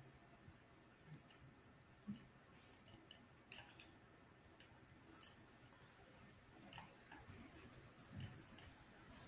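Near silence: room tone with scattered faint clicks.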